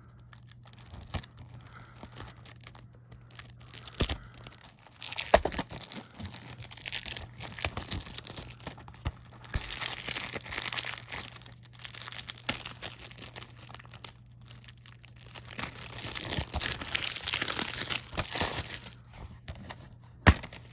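Plastic wrapping being torn and crinkled off a DVD case, a continuous crackling with sharp clicks and snaps here and there.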